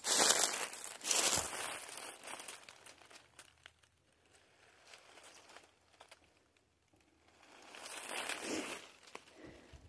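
Footsteps crunching and rustling through deep dry fallen leaves, louder for the first couple of seconds and again near the end, with a quieter stretch in between.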